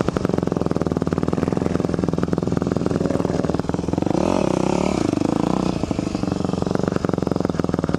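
Dirt bike engine running with a fast, steady pulsing exhaust; just past the middle the revs rise and fall for a couple of seconds as an engine works through mud.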